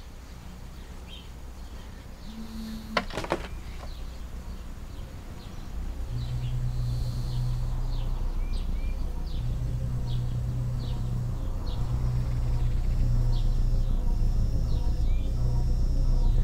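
Outdoor summer ambience with scattered bird chirps and short insect buzzes. A sharp click comes about three seconds in. From about six seconds in, a low steady drone enters and grows louder.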